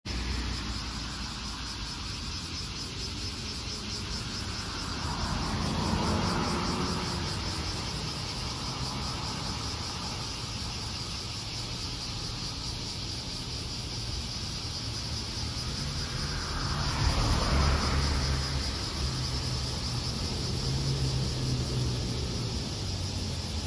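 Street traffic: a vehicle passes about six seconds in and another around seventeen seconds, then a Kintetsu city bus's diesel engine running low and steady as it approaches and slows for a stop. A steady high hiss sits under it all.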